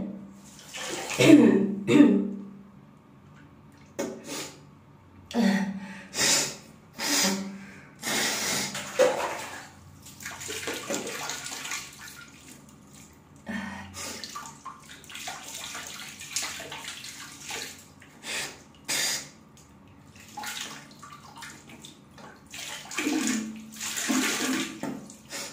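A girl coughing repeatedly in separate fits. Some coughs carry her voice, others are mostly breath noise with short gasps between them.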